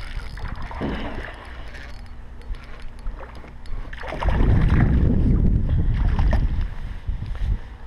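A hooked bass splashing at the surface as it is played in beside a kayak, with scattered light clicks and a heavy low rumble lasting about two seconds, starting about four seconds in.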